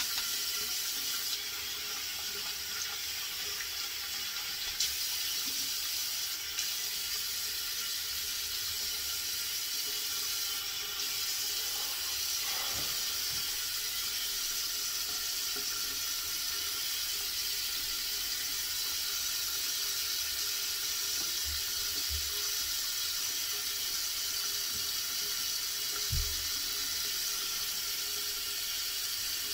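Tap water running steadily into a sink, an even hiss, with a couple of soft knocks.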